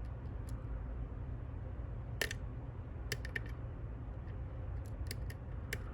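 Light, scattered clicks of a hook pick working the pins of a Ruko Combi 2 lock, a 6-pin lock with a finger-pin sidebar, as pins are lifted and set. The sharpest click comes about two seconds in, over a steady low hum.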